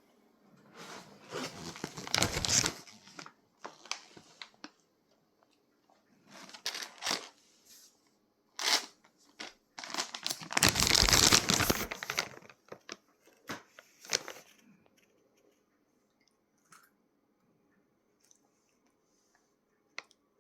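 Plastic snack packet crinkling and rustling in several loud bursts as it is handled and pulled at, the longest near the start and about halfway through, then falling quiet.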